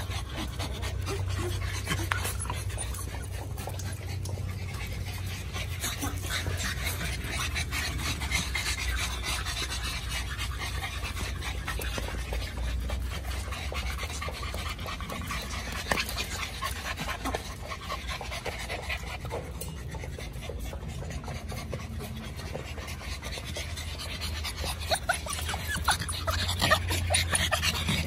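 American Bully puppies panting close by, with scattered light clicks and scratches that become busier and louder near the end. A steady low hum runs underneath.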